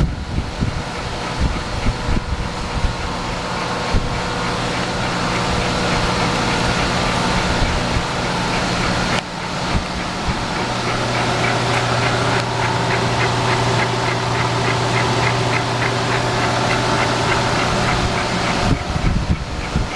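Bridgeport Series 1 milling machine running: a steady electric motor hum with a fast rhythmic whirr above it, the tone shifting about halfway through.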